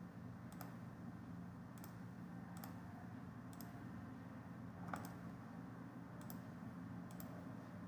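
Faint computer mouse clicks, about seven spread irregularly, over a steady low hum.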